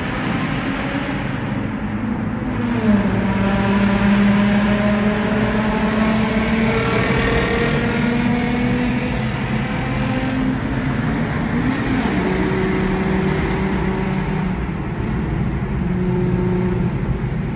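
Car engine accelerating through a road tunnel, its note climbing and then stepping up and down as it goes through the gears.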